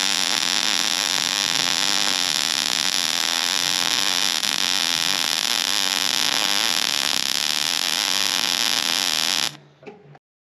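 Electric arc welding on the cracked steel bucket of a CAT 308E excavator: a steady, crackling hiss from the welding arc during one weld run, which cuts off abruptly near the end.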